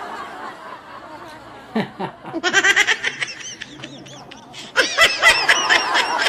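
High-pitched laughter in two bursts of quick giggles, the second longer and louder.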